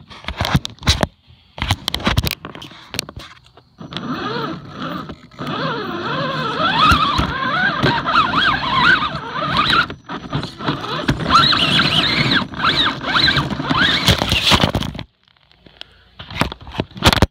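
Axial Wraith RC rock crawler's electric motor and geartrain whining, the pitch gliding up and down with the throttle. It starts about four seconds in, dips once briefly, and cuts off sharply a couple of seconds before the end. Before the whine there are scattered clicks and knocks, with a few more near the end.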